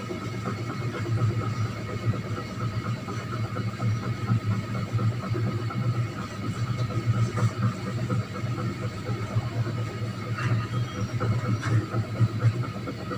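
Whiteboard eraser rubbing across the board in irregular strokes, over a steady low hum.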